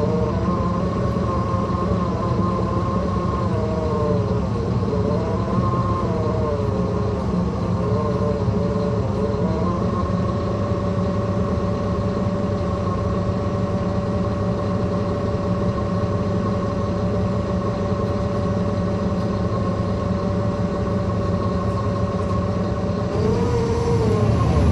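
2009 NABI 40-foot transit bus under way, its Caterpillar C13 diesel running with a low drone, while a gear whine from the axles rises and falls with road speed. The whine then holds steady at cruise and grows louder near the end.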